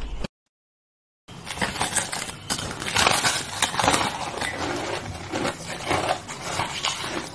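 Close-up crunching of a block of frozen pink shaved ice being bitten and chewed: a dense, crackling run of bites that starts after about a second of silence near the beginning.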